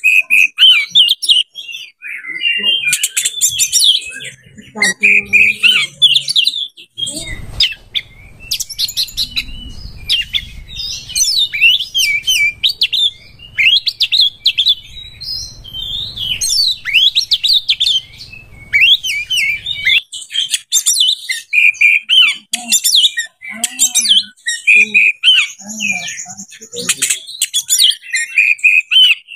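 Oriental magpie-robin (kacer) singing a fast, varied song of chirps, whistles and rapid trills without a break. A faint low rumble sits behind the song for a stretch in the middle.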